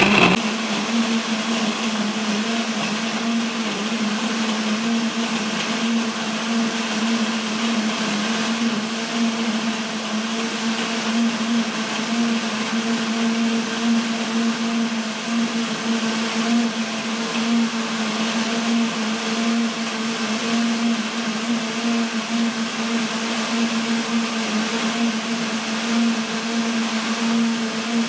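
Electric countertop blender running at a steady speed, blending eggs, oil and chopped orange and ponkan into a smooth liquid cake batter. It gives an even, unchanging motor hum.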